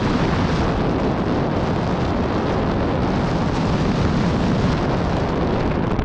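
Steady, loud rushing noise of wind buffeting the microphone.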